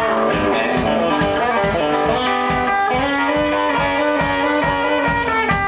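Live rock music between sung lines: electric guitar playing through an amplifier over a steady, quick drum beat.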